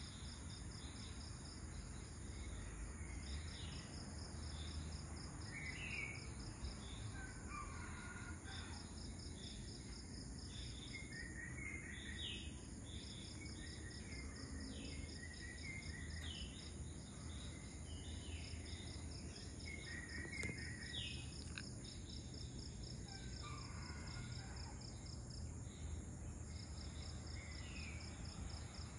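Dawn chorus: a steady, high-pitched insect chorus pulsing rapidly, with short bird calls breaking in every few seconds, over a faint low rumble.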